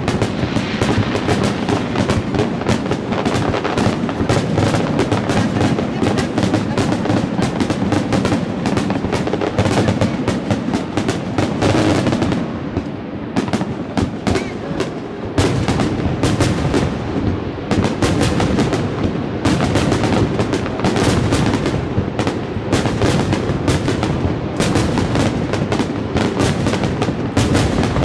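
A rapid barrage of aerial fireworks shells bursting over water, the bangs and crackles coming thick and fast and overlapping. The bangs thin out briefly about twelve to fifteen seconds in, then build again.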